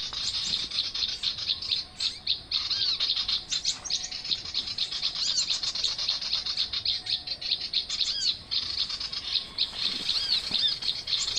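Small songbirds chirping densely: quick, high, arching notes repeated over and over without a break.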